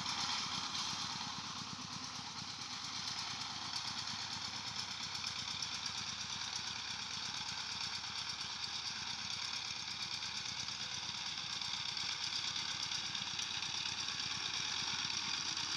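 Two-wheel power tiller's single-cylinder diesel engine running steadily with a rapid, even chugging, under load as it drags a leveling plank over tilled soil.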